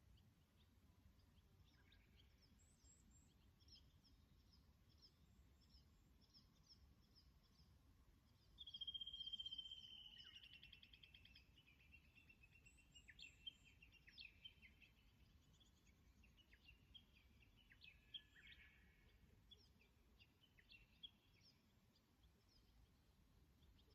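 Wild birds singing faintly over low background noise: a run of high, quick chirps, then, about eight and a half seconds in, a louder trilling song that slides down in pitch, followed by scattered shorter calls.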